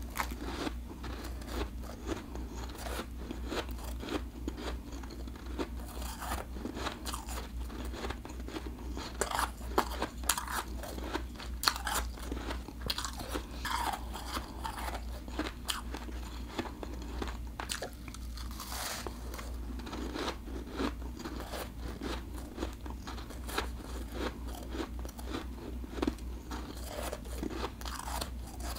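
Refrozen blended ice being bitten off in clumps and chewed: a dense, irregular run of sharp crunches.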